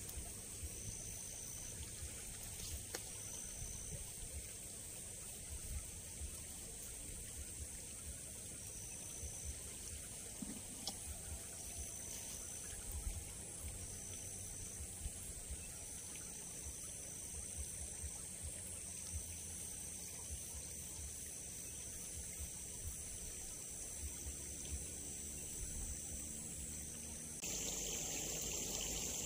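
Outdoor ambience dominated by a steady, high-pitched insect chorus, with a pulsing tone that comes and goes. Near the end it changes abruptly to louder trickling water in a small ditch.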